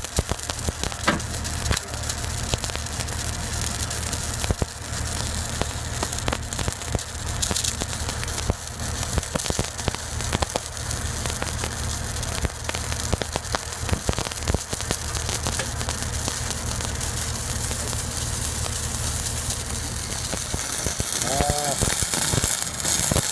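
Stick-welding (SMAW) arc crackling and sizzling steadily as the electrode burns along a steel pipe joint, with many fine pops. A steady low hum runs underneath.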